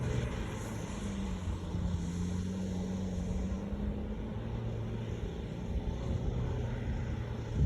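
A vehicle's engine running hard during circle work, its pitch rising about a second in, holding, then falling back around four seconds in, over a steady low rumble.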